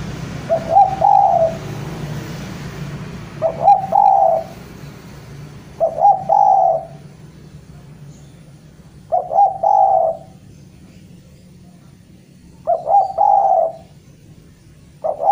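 Spotted dove cooing, its call to a rival: five calls about every three seconds, each a quick stutter of short notes running into a longer coo, with a sixth call starting at the very end.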